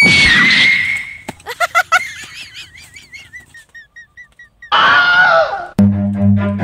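Comedy sound effects: a long high whistle tone that cuts off just after the start, then a wobbling warble that fades over a few seconds. About five seconds in comes a short cry, and a bass-heavy music loop starts right after it.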